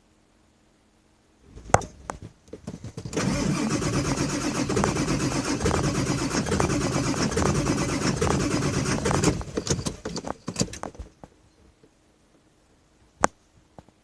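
Ford 7.3 L Power Stroke diesel being cranked over by its starter for about six seconds without catching, then going quiet after a few stray pops. It is a hard start, which the owner puts down to worn injectors.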